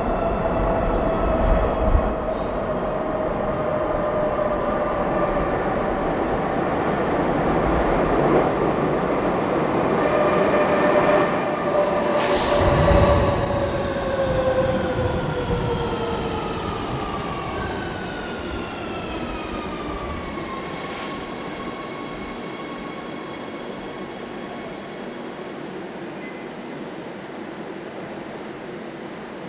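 Subway train slowing down: its motors whine in several tones that fall steadily together in pitch, with a brief low rumble about twelve seconds in. The whine levels off about two-thirds of the way through, and the sound fades gradually toward the end.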